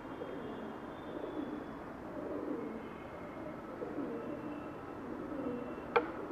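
Bird calls, and one sharp click near the end.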